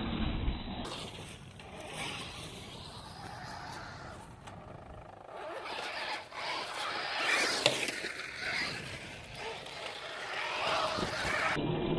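Losi Rock Rey radio-controlled truck driving, its 3500 kV electric motor and drivetrain running unevenly, swelling and fading, loudest about seven to eight seconds in.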